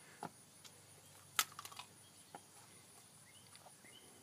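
A jump rope and sneakers slapping a concrete patio as a child skips: a few sharp, irregular slaps, the loudest about a second and a half in.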